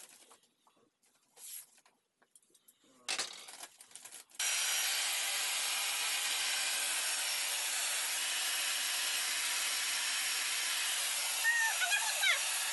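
Cellophane wrap crinkling as it is handled, then about four seconds in a handheld hair dryer switches on and blows steadily, used to heat-shrink the cellophane around a gift basket.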